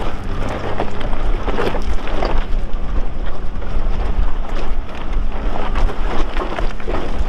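Lifted R50 Nissan Pathfinder's engine running steadily at low speed on a rocky climb, with irregular crackling knocks from the tyres rolling over loose rock.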